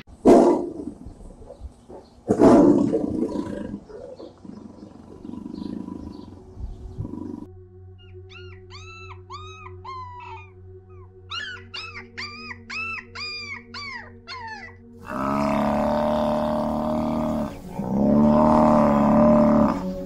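A tiger roaring twice, each roar short and sudden. Then Shar Pei puppies whining in a quick run of high whimpers that rise and fall in pitch. Then a water buffalo lowing in two long calls.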